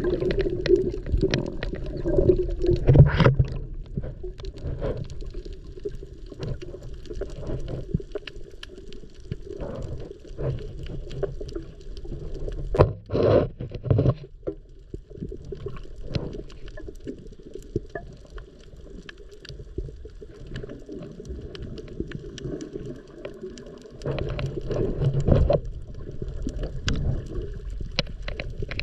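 Muffled underwater sound of a snorkeler moving through the water over a reef: a low wash of water noise with scattered clicks and a few louder bursts, the strongest about 13 seconds in.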